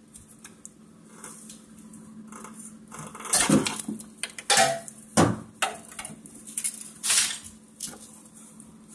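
Steel pry bar clanking against the front CV axle and transaxle case while levering the axle's inner end out: about five sharp metallic clanks, starting about three seconds in, over a steady low hum.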